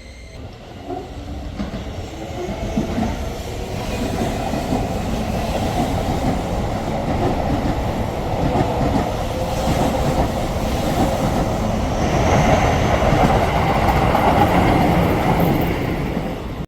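Keio Line electric train running past on the rails, growing steadily louder for about twelve seconds and staying loud until it cuts off suddenly near the end.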